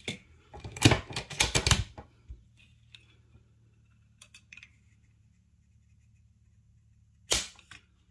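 Metal handling clicks from a bolt-action rifle and a trigger-pull gauge. About seven seconds in comes a single sharp click as the Ruger M77's trigger, fitted with a Rifle Basix RU-T aftermarket sear, breaks under the gauge at just over 2.5 pounds and the firing pin snaps forward on an empty chamber, followed by two small ticks.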